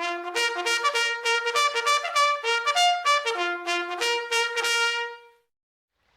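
Huawei P20 Pro alarm tone: a quick melody of short, trumpet-like brass notes that ends on a longer held note about five seconds in.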